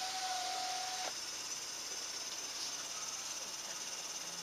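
Compressor making an abnormal noise: a steady high hiss, with a thin steady tone over it that cuts off about a second in.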